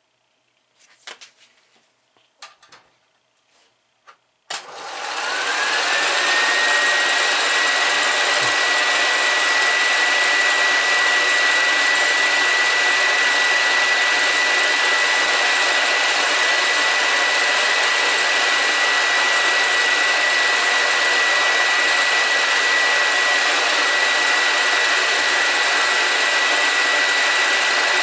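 A few light clicks and knocks, then about four and a half seconds in a film projector starts up: a sudden rush of motor and fan noise with a whine that rises and settles into a steady high tone, running on evenly.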